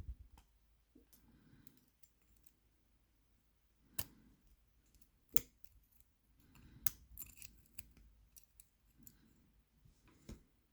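Small, sharp metal clicks and ticks of tweezers picking out and handling the tiny levers of a lever lock as it is taken apart, a few distinct clicks spaced irregularly over faint handling noise.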